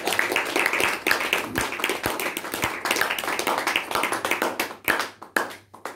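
Audience applauding, a dense patter of hand claps that thins out and stops near the end.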